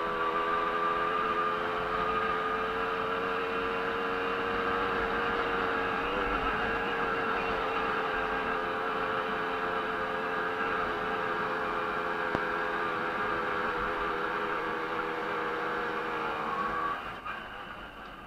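Jawa 50 racing moped's small two-stroke single-cylinder engine held at steady high revs under the rider, with wind rumble on the microphone. About seventeen seconds in the revs drop off as the throttle is closed.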